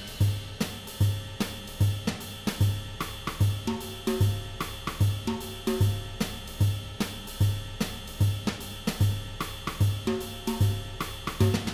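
Background music: a drum-kit groove with a steady bass-drum beat, hi-hat and cymbals.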